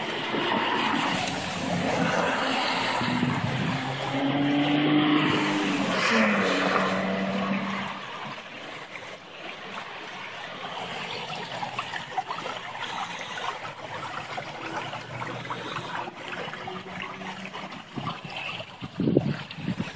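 Floodwater and rain washing along a flooded street curb in a heavy storm. For roughly the first eight seconds a car is heard going through the water, its engine and tyres over the wash, and then the steady sound of the rain and runoff carries on alone.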